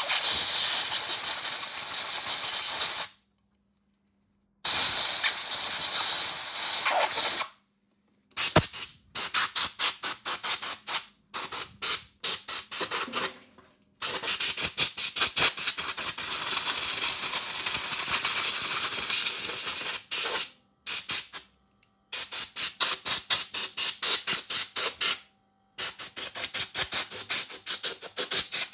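Compressed air hissing from a hose-fed blow gun, blowing dust out of a dirty laptop cooling fan and chassis. It comes in long blasts and strings of rapid short puffs, with pauses of a second or two between them.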